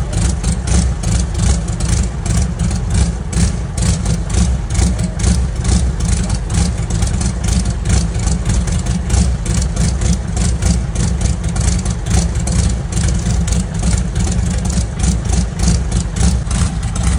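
Brantly B2 helicopter's piston engine running steadily on the ground with a rapid, even beat, warming up on its first run in years after its fuel lines were cleaned and filters replaced.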